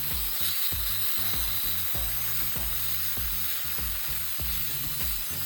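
Grinder cutting the teeth off an old steel hole saw: a steady, even hissing grind of metal. Background music with a steady beat plays underneath.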